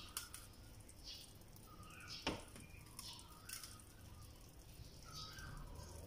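Quail eggshells tapped and cracked open over a nonstick electric pan: a few faint, sharp clicks, the sharpest about two seconds in. Faint short chirps sound in the background.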